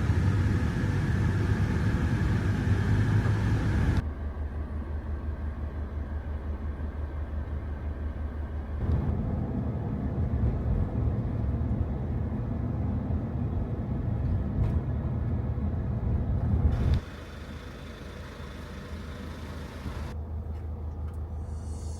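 Steady low rumble of a vehicle in motion, engine and road noise as heard from inside, made of several clips joined by sudden cuts.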